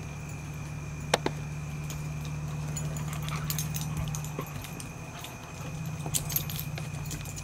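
Puppies scuffling on a wooden deck: scattered sharp clicks of claws on the boards and jingling collar tags, in a pair about a second in and in clusters around the middle and near the end. Under it runs a steady low hum and a constant high tone.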